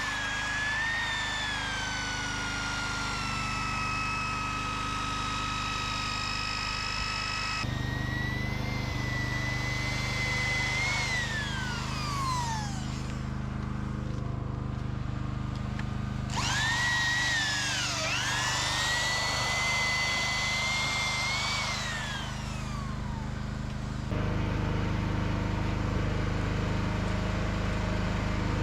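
Power drill motor whining at speed, its pitch dipping as it bites and sliding down as it spins down, twice. A low engine hum runs underneath.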